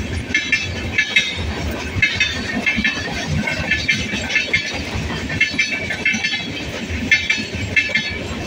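Passenger train of LHB coaches passing at speed close by: a steady rumble of wheels on rail, with groups of sharp clicks about once a second as the bogies run over rail joints.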